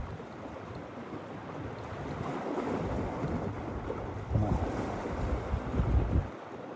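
Wind buffeting the microphone over small waves washing against the shore, with the heaviest gusts in the last couple of seconds before they drop away suddenly.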